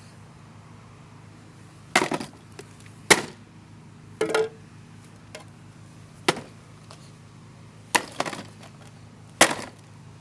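A two-pound hammer striking a cheap plastic coffee machine: about seven sharp, separate blows, irregularly spaced one to two seconds apart, each a short crack of breaking casing.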